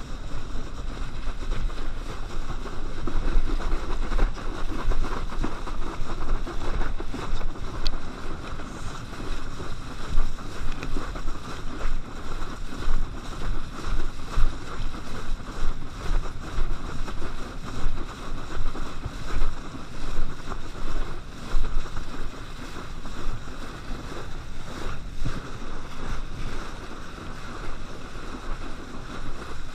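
Wind buffeting the microphone of a camera mounted on a towed kneeboard, mixed with water rushing and spraying under the board as it skims across a boat's wake at speed. The noise is steady, with a heavy low rumble, and surges and dips irregularly as the board rides the chop.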